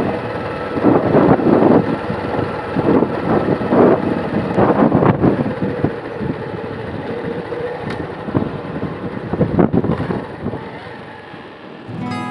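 A motor vehicle running along a road, a steady engine hum with irregular surges of wind buffeting the microphone.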